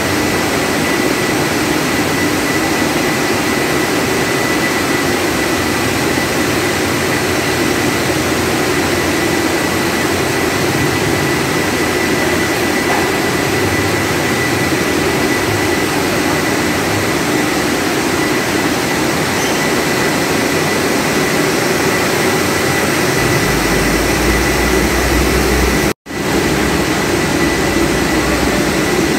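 Steady mechanical roar of French fry production-line machinery running, with a thin high whine held throughout. A deeper rumble joins about three seconds before a brief dropout near the end.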